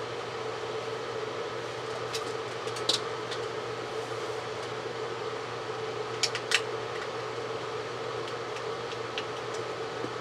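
Steady machine hum, with a few faint small clicks from a small screwdriver working the screws out of a USB soldering iron: one about three seconds in and two close together near the middle.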